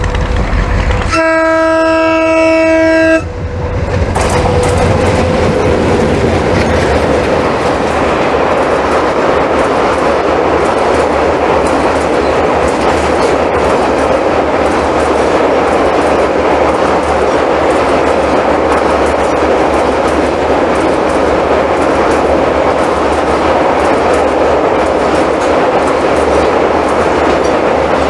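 Diesel locomotive horn sounding a chord of several notes for about two seconds, cut off sharply. It is followed by the steady rush and clickety-clack of passenger coaches passing close by at speed.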